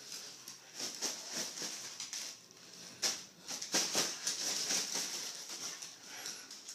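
Inflated plastic shopping bag crinkling and rustling in irregular bursts as a dog bites and shoves it, loudest around the middle, with the dog's claws clicking and scrabbling on a hardwood floor.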